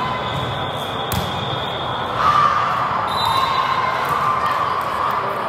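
Gym noise during a volleyball match: voices of players and spectators over the thud of the ball. The voices grow louder about two seconds in.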